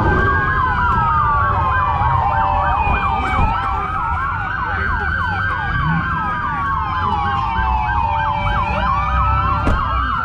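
Several emergency vehicle sirens sounding at once, overlapping: a fast yelp of about three sweeps a second alongside slower rising-and-falling wails.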